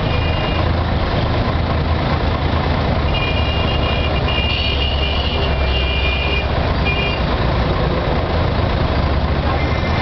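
Busy street traffic: a steady rumble of vehicle engines. A high-pitched tone sounds on and off from about three to seven seconds in.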